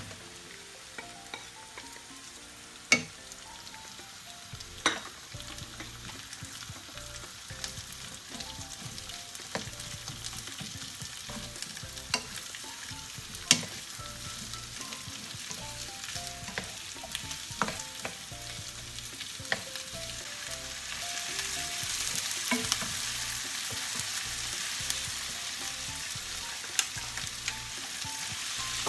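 Sliced onions frying and sizzling in a non-stick frying pan, stirred with a wooden spoon that knocks sharply against the pan now and then. The sizzle grows louder about two-thirds of the way through.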